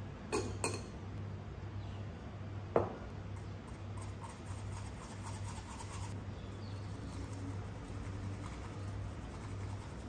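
A spoon scraping matcha powder through a fine stainless-steel mesh sieve over a glass bowl, with soft scratching and rubbing. There are a few light clicks at the start and one ringing clink of metal on glass about three seconds in, over a low steady hum.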